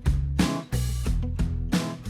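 Background music with a strong steady beat and bass.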